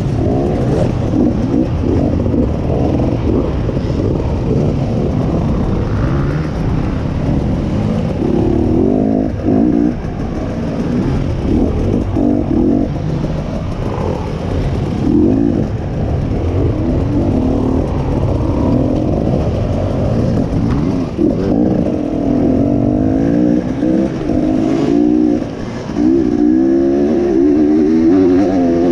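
Enduro dirt bike engine heard from on the bike, revving up and down again and again as it is ridden along a dirt trail, with the hardest revving near the end.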